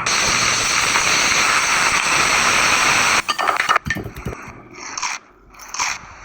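A steady hiss for about three seconds that cuts off suddenly, followed by a few short scraping and clattering sounds.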